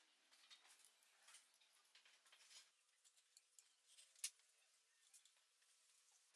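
Near silence with faint clicks and taps of hands handling small metal bolts, washers and wing nuts against a small wooden block, with one sharper click about four seconds in.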